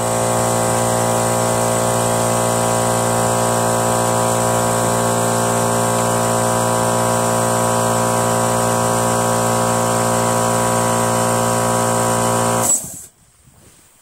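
Steady hum of an electric motor-driven machine running, cutting off suddenly about 13 seconds in.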